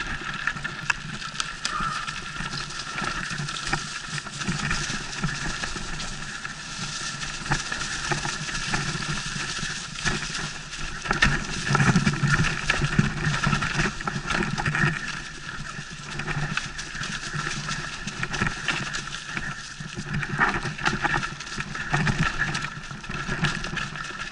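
Mountain bike riding fast down a rough forest singletrack: tyres running over dirt, stones and dry leaves, with the bike rattling and clattering over the bumps, louder through a rougher stretch about halfway.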